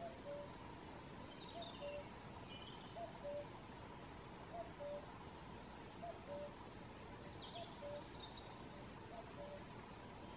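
Common cuckoo calling its two-note "cuck-oo", the second note lower, repeated about every one and a half seconds. A smaller bird chirps briefly twice, higher up.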